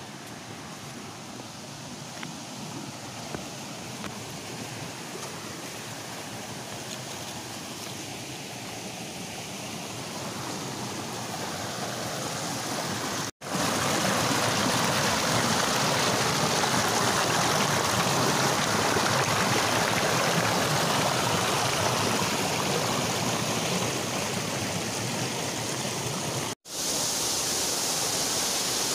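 Rushing water of a small forest waterfall and its cascade over rocks: a steady hiss that grows slowly louder at first, jumps louder at a cut about halfway through where the water pours close by, and eases a little after another cut near the end.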